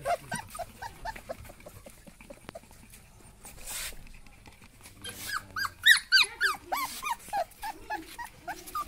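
Labrador retriever puppies whining in short, high, rising-and-falling cries. The cries come sparse at first, then in a dense, overlapping run from about five seconds in.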